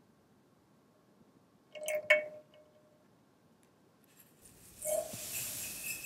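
A clink against an enamel milk pan, ringing briefly, about two seconds in; then caster sugar pouring into the pan as a steady grainy hiss, with another clink as it starts.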